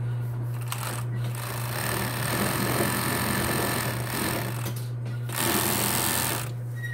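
Pegasus industrial overlock (serger) machine running at speed, stitching fabric in two runs, about four seconds and then about one second long, over a steady motor hum.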